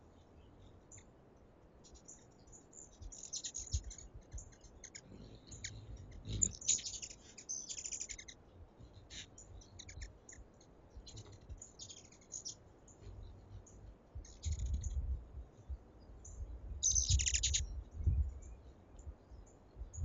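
Hummingbirds at a feeder making high, short chips and chattering twitters in scattered bursts, the busiest about six seconds in and again near the end, with low rumbling alongside.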